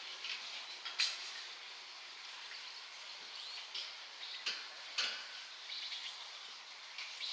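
Outdoor ambience with a steady high hiss and faint bird chirps, broken by a few sharp cracks, one about a second in and two close together about four and a half to five seconds in.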